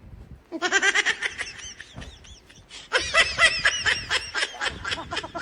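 A young child laughing in two long bouts of quick, high-pitched giggles, the second starting about three seconds in and trailing off near the end.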